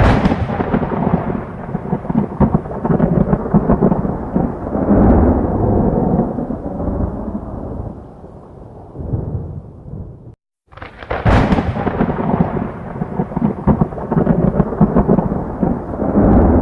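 Thunder rumbling in two long rolls, cut apart by a short silence about ten seconds in. The second roll opens with a sharp crack.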